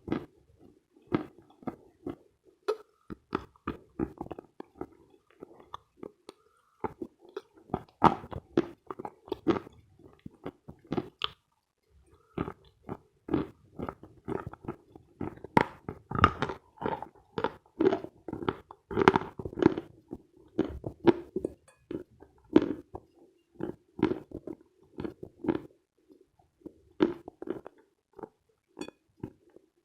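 Close-miked chewing of Khrapovsky chalk: a dense run of sharp, crisp crunches, with two short pauses about six and twelve seconds in.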